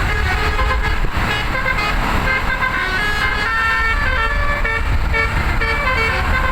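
A bus's telolet basuri musical air horn, a roof-mounted set of 12 horn trumpets, playing a fast tune of short notes that hop from pitch to pitch, over a low engine rumble.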